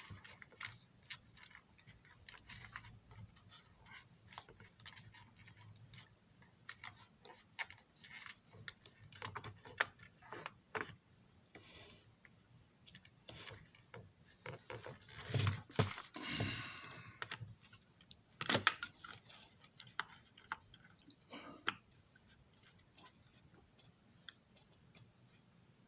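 Small, scattered clicks and taps of model railroad car parts being handled at a workbench, with a louder scraping handling sound a little past the middle and a sharp click soon after.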